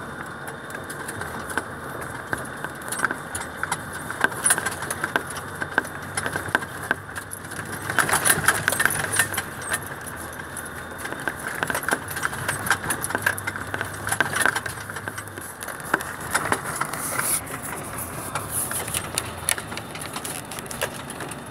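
Truck driving on a rough dirt road, heard from inside the cab: the engine runs with a steady low hum while loose parts in the cab rattle and clatter continuously over the bumps.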